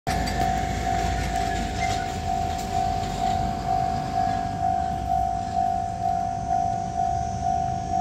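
Japanese railway level-crossing warning bell ringing, an even single-pitched ding about twice a second, as the barrier arms come down for an approaching train.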